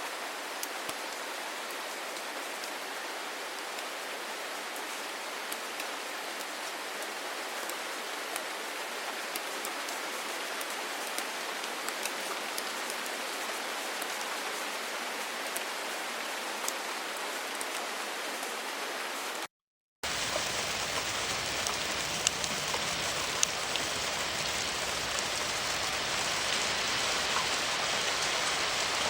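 Steady rain falling, with individual raindrops ticking through the hiss. About two-thirds of the way through it cuts out for half a second, then comes back as louder, fuller rain.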